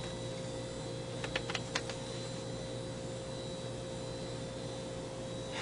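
A few quick, uneven clicks of computer keyboard keys about a second in, over a steady electrical hum and hiss.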